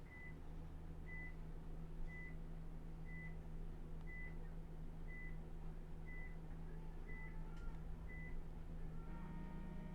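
Electronic beeper sounding nine short, high beeps about a second apart, over a steady low hum; near the end a longer sound with several tones begins.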